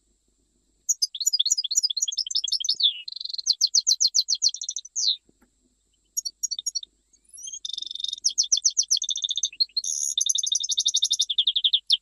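European goldfinch (mqnin) singing in the Jijel style: fast twittering phrases of rapid, high repeated notes and trills, starting about a second in, with short pauses midway.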